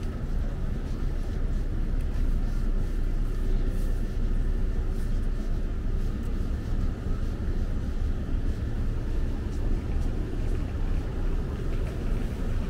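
Steady low rumble of city street traffic, an even drone with no distinct events.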